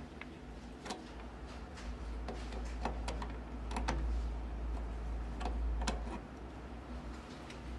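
Irregular light clicks and taps from a hand working at the front of a desktop computer case, over a steady low hum.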